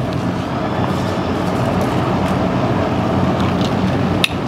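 Pepsi sipped steadily through a straw for about four seconds, ending with a sharp click near the end.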